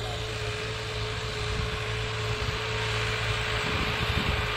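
Bull Power 565 Extra tractor's 60 hp diesel engine running steadily under load while it pulls an 18-disc harrow through dry soil, with a constant hiss over it. It grows louder as the tractor approaches.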